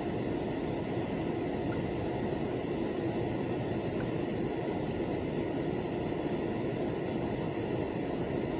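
Steady rumbling noise of a freight train rolling past.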